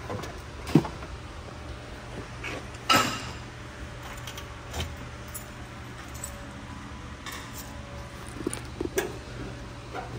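A few scattered knocks, clicks and clinks of things being handled, the loudest about a second in and three seconds in, over a low steady hum.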